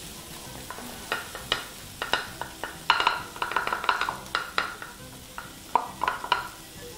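Chopped garlic sizzling in hot oil in a frying pan as it is sprinkled in, with a soft hiss broken by clusters of sharp crackling pops.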